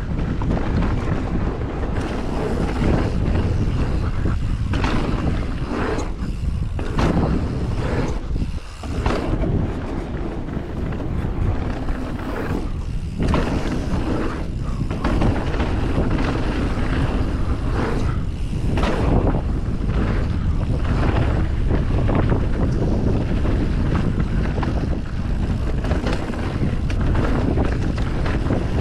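Wind rushing over an action camera's microphone, mixed with the tyres and frame of a Commencal Meta SX mountain bike rolling fast over dirt. The noise swells and dips with speed through the jumps and berms, with a few brief lulls.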